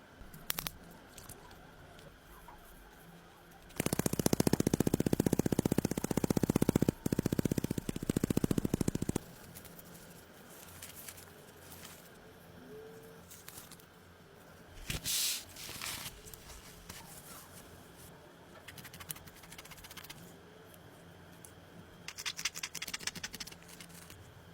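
A power tool runs for about five seconds with a rapid hammering pulse, stopping briefly partway, followed by quieter scraping and handling sounds and a short burst of rapid ticking near the end.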